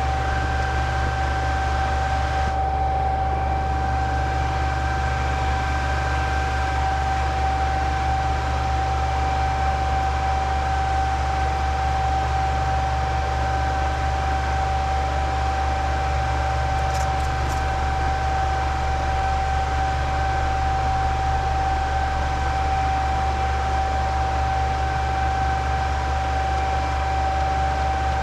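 Cooling fans of running mining equipment: a steady whirring hum with a constant high whine over it.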